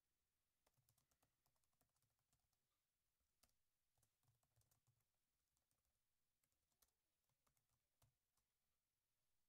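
Very faint computer keyboard typing: short runs of keystroke clicks with pauses between them.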